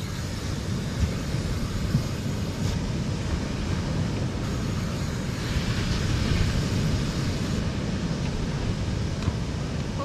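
Wind rumbling on the microphone over the wash of surf on the beach, with a hiss that swells about halfway through and fades again.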